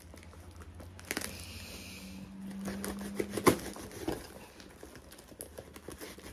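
A knife cutting and scraping through a brown paper package, with the paper crinkling and tearing and scattered sharp clicks. One louder click comes about three and a half seconds in.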